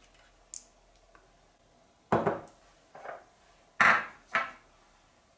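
Metal spoon scooping thick green-tomato and fig jam out of a glass jar: a small click, then a few short scrapes and knocks of spoon against glass.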